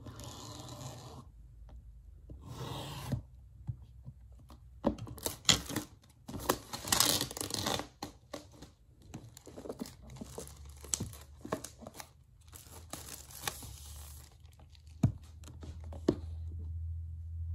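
Scissors cutting into the packaging of a boxed iPad, then the wrap tearing and crinkling. Fingers pick at it and the box is handled, with sharp taps and clicks through the middle.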